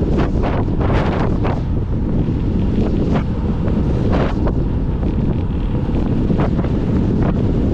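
Wind buffeting the microphone of a camera on a moving bicycle: a loud, steady low rumble with brief gusty flares every second or so.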